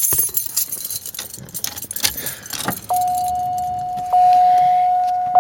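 Car keys jangling and clicking as they are handled at the ignition, then about three seconds in the 1991 Buick LeSabre's dashboard warning chime starts: a steady single tone, re-struck roughly every second.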